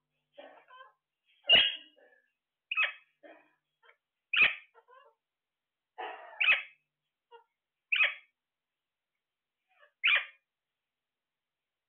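Caged Alexandrine parakeets calling: six short, loud squawks about one and a half to two seconds apart, with fainter chatter between them.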